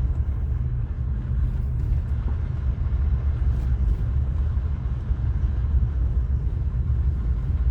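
Vehicle driving slowly on a road, heard from inside the cabin: a steady low engine and road rumble.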